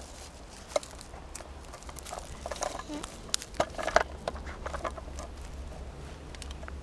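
Dry leaves and pine needles rustling and crunching underfoot, irregular sharp crackles that are densest and loudest around three to four seconds in.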